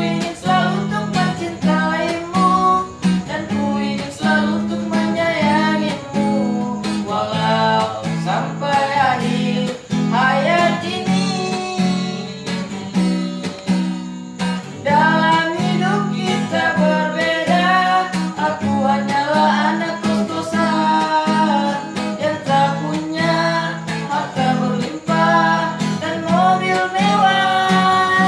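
A song performed on a strummed acoustic guitar with a voice singing the melody over it.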